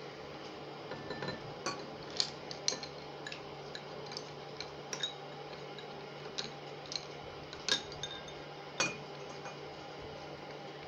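Ice cubes being spooned from a glass bowl and dropped into drinking glasses: irregular sharp clinks of ice and a metal spoon against glass, with the loudest strikes about two-thirds of the way through.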